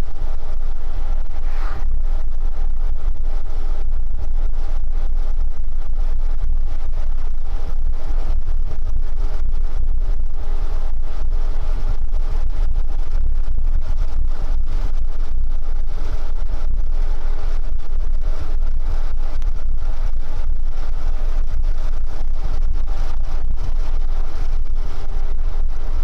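Steady engine drone and low road rumble inside the cab of a large vehicle driving at a constant speed.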